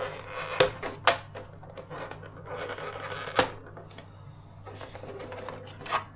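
Plastic RC truck body shell being handled, unclipped and lifted off its chassis: rustling with about four sharp clicks spread through it.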